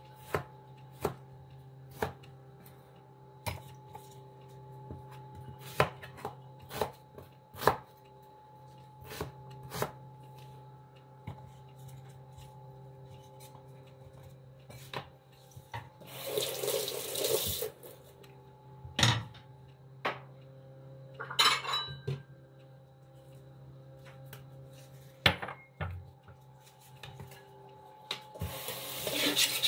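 Cleaver chopping vegetables on a plastic cutting board: single sharp knocks at irregular intervals over a faint steady hum. Near the end a kitchen tap starts running into a stainless steel sink.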